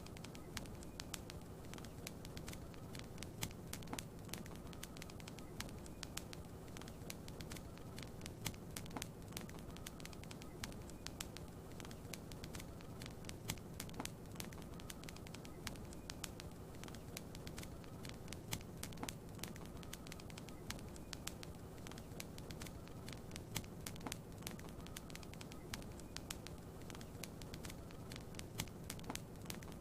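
Wood fire crackling in a fireplace: irregular sharp pops and clicks, several a second, over a steady low hum.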